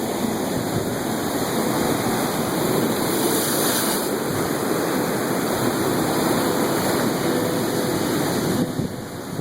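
Ocean surf washing on the shore, a steady loud rush of water with wind on the microphone; it eases slightly near the end.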